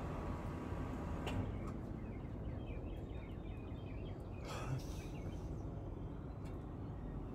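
Quiet room tone with a steady low hum and faint bird chirps in the background, a single click about a second in and a brief soft noise near the middle.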